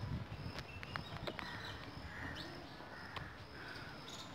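A few light clicks and taps of metal parts being handled at the oil filter cover of a Bajaj Discover 100 engine, as the filter cover is fitted back on. Most of the clicks come in the first second and a half.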